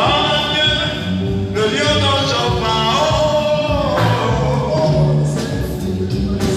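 Hymn singing with instrumental backing: voices holding long, sliding notes over a steady low beat.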